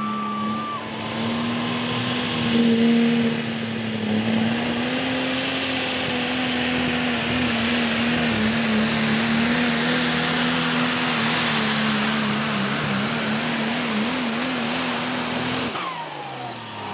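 Diesel pickup truck engine running flat out under load while pulling a weight-transfer sled, with a high, steady turbocharger whistle over it. The engine note wavers in pitch near the end, then the throttle lifts about sixteen seconds in and the revs and whistle fall away as the truck stops.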